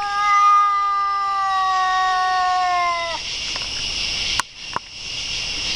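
A cat's long, drawn-out yowl, held at a steady pitch for about three seconds and dropping off at the end.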